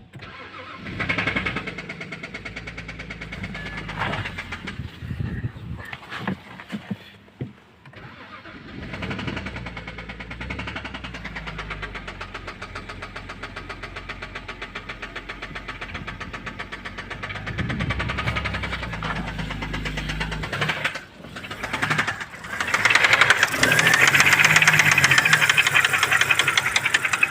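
BMW N52B25 inline-six engine of an E90 325xi starting and running with a fast, regular knock. The owner is unsure whether it comes from a spun bearing or the oil pump. The engine sound gets louder over the last few seconds.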